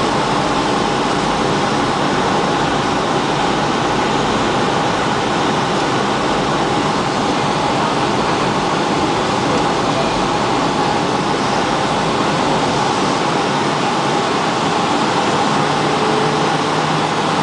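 Steady cabin noise inside a Boeing 757 airliner on its approach to land: an even rush of engine and airflow noise with a faint steady hum running through it.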